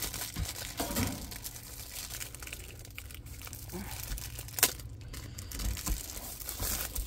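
Clear plastic bag around a rolled diamond painting kit crinkling as it is handled and turned over, with one sharper click about halfway through.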